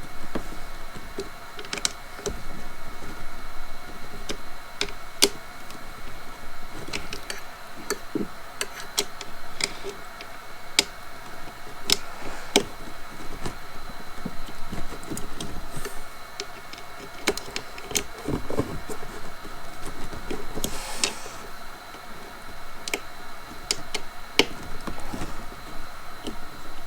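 Irregular clicks and light knocks of parts being handled and fitted together while a string trimmer is assembled and tightened, over a faint steady high hum.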